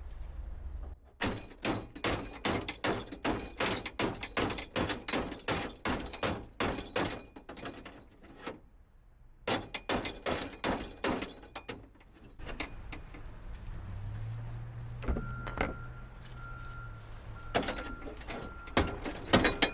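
Rapid knocking on a car door, about three blows a second in two runs, while a stuck door window is worked loose. Then comes quieter rattling and scraping with a thin, steady squeak near the end.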